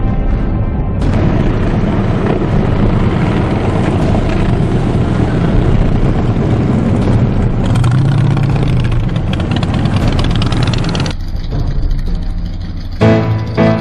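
A group of cruiser motorcycles riding past, engines running loudly with a deep rumble; the noise drops off about eleven seconds in.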